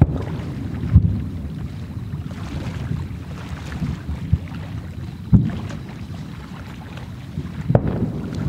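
Wind rumbling on the microphone, with distant fireworks thudding several times: at the start, about a second in, after about five seconds and near the end.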